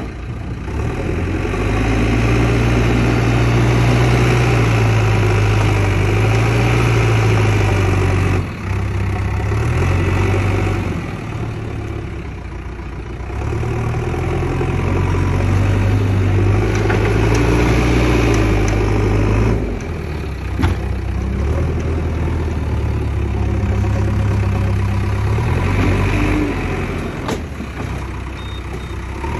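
JCB 3DX Xtra backhoe loader's diesel engine working, its pitch rising and falling several times as the machine drives and carries soil in its front loader bucket. There is one short knock about two-thirds of the way through.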